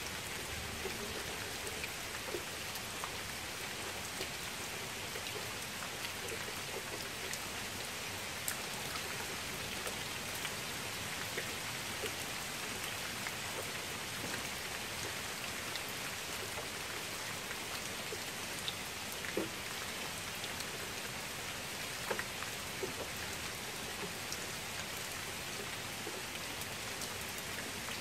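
Steady rain falling onto shallow water: an even hiss of rain on the surface, with individual drops splashing here and there.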